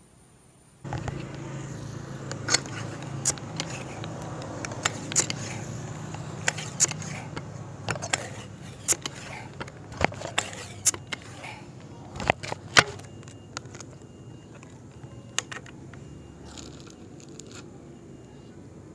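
Sharp irregular clicks and scrapes of a Sharp Tiger air rifle being handled and readied for the next shot, over steady outdoor background noise that starts abruptly about a second in. The clicks stop about two-thirds of the way through.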